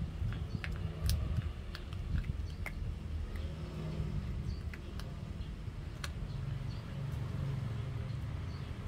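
A puppy gnawing on a pork bone: scattered small, sharp clicks and crunches of teeth on bone, over a low background rumble.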